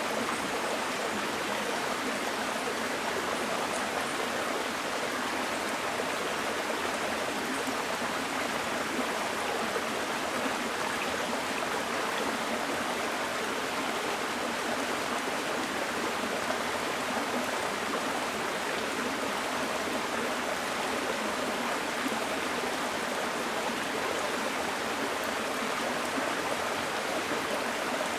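Small forest stream flowing with a steady, unbroken rush of water.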